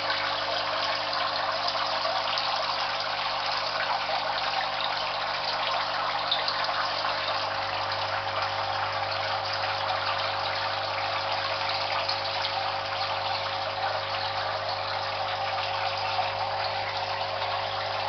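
Aquarium pump running, with water bubbling and splashing steadily in the tank over a steady low hum.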